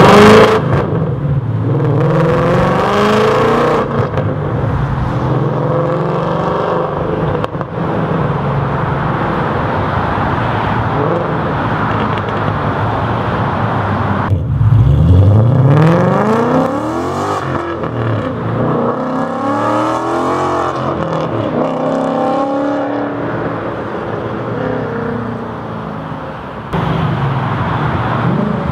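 2013 Ford Mustang GT's 5.0 Coyote V8, through long-tube headers, a high-flow catted X-pipe, deleted resonators and a Magnaflow Street Series axle-back, accelerating hard away, the revs climbing and falling with each upshift and fading with distance. About halfway through a second run of rising revs is heard from far off, and near the end the exhaust is suddenly louder and closer.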